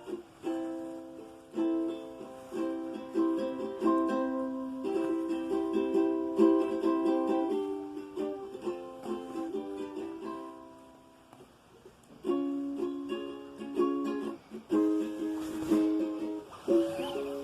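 Acoustic guitar (violão) being played in a small room: plucked notes and strummed chords, with a short pause about eleven seconds in before the playing starts again.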